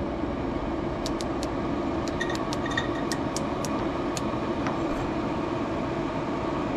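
Wood pellet smoker grill running during its first burn-off, a steady whir, with a scatter of light clicks between about one and five seconds in as pellets drop into the fire pot.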